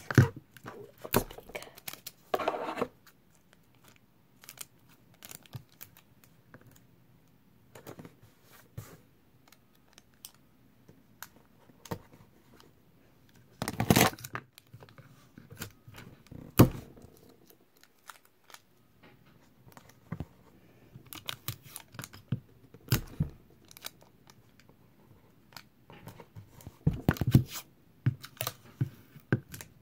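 Clear tape being pulled off a roll and torn on a desk tape dispenser, with scattered clicks and knocks as the dispenser is handled. The loudest tear comes about halfway through.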